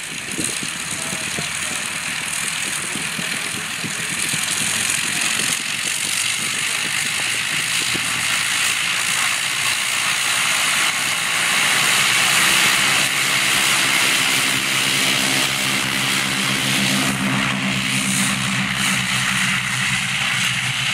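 Ford Tri-Motor's three radial engines running as it taxis, a loud rushing propeller-and-engine noise growing louder over the first half. A steady low drone comes in about halfway through and holds to the end.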